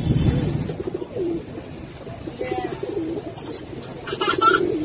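Domestic racing pigeons cooing: low, wavering coos repeated a few times.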